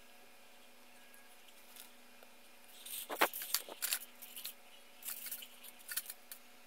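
Plastic Gundam model kit parts clicking and rattling as they are handled and set down in a cardboard box. The sounds come in two bunches of quick clicks from about three seconds in, over a faint steady hum.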